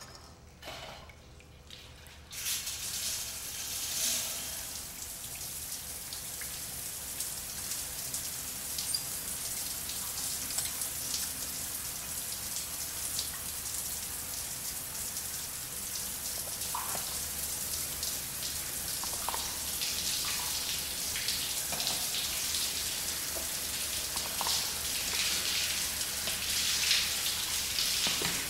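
Shower comes on about two seconds in and runs steadily, water spraying and splashing on tiles.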